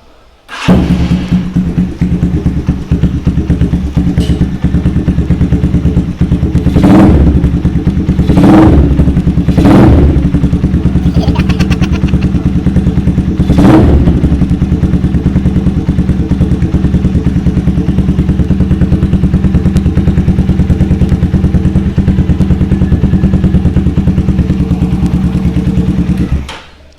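Motorcycle engine breathing through an SC Project bent-tip exhaust with its silencer (dB killer) removed, very loud. It starts up about half a second in and idles steadily, is blipped four times between about 7 and 14 seconds, and shuts off just before the end.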